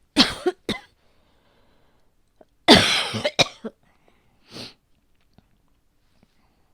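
A woman coughing: two sharp coughs, then after a pause a longer fit of several coughs, followed by a short breathy sound. She suspects it is her asthma flaring up.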